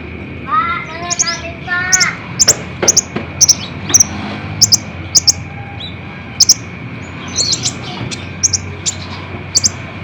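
Sunbird ('kolibri ninja') singing: a string of sharp, very high double-note calls, about one every half second, with a few lower warbled phrases in the first two seconds.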